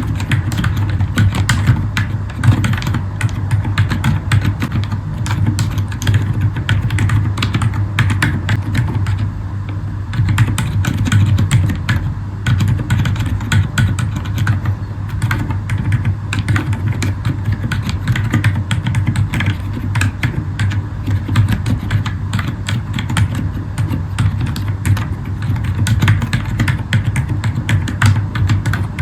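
Continuous typing on a Zifriend ZA63 mechanical keyboard with Akko Fairy silent switches: a rapid, irregular stream of dampened keystrokes, heavily amplified, over a steady low hum.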